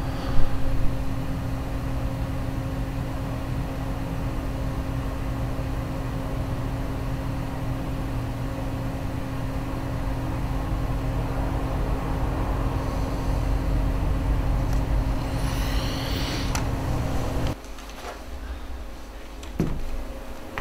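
Steady low mechanical drone with a constant hum. It swells a little about two-thirds of the way through and cuts off abruptly near the end.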